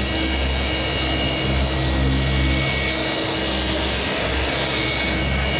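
Electric dual-action polisher running steadily at a speed setting of about 3,500, its foam pad buffing a carbon-fibre hood: a constant motor whine over a low hum.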